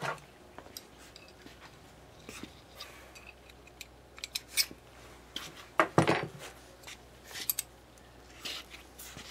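Steel hex keys clinking and rattling against each other as a set is handled and one key is picked out, a string of irregular light metal clicks with the loudest clatter about six seconds in.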